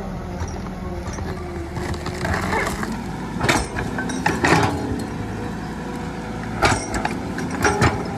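Excavator engine running steadily while the bucket digs and scoops soil, with several sharp metal clanks from the bucket and arm linkage about halfway through and again near the end.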